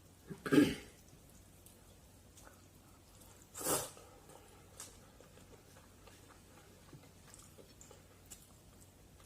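Eating sounds from a person eating jjajang noodles: two short loud breathy mouth sounds, one about half a second in and one near four seconds, with faint chewing clicks between.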